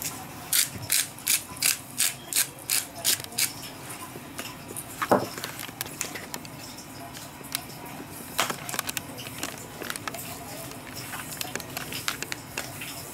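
Pepper grinder being twisted: about nine quick grinding rasps, roughly three a second, over the first few seconds. A sharp knock about five seconds in, then a few faint scattered clicks.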